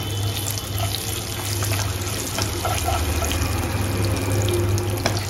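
Cumin seeds and whole spices sizzling steadily in hot mustard oil while being stirred with a slotted spoon, with a few light clicks of the spoon against the pan and a steady low hum underneath. The sizzle marks the tempering (tadka) stage, the cumin crackling in the oil.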